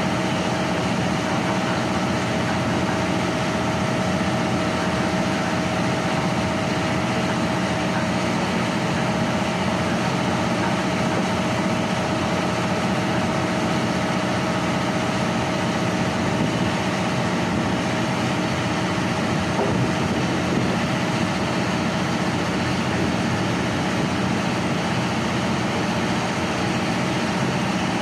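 Kiha 183 diesel multiple unit idling at a standstill: a steady diesel engine hum with a constant whine on top.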